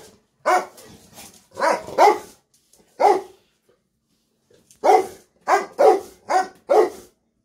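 Rottweiler-cross-Presa-Canario dog barking, about ten short barks in two runs with a pause of about two seconds between them: excited barking for food at feeding time.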